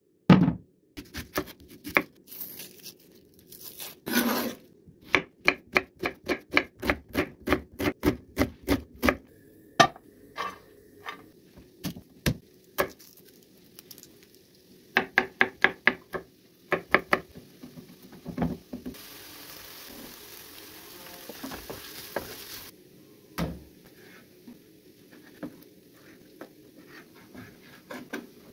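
Chef's knife chopping garlic cloves on a wooden cutting board: sharp taps of the blade on the wood in quick, even runs, with pauses between.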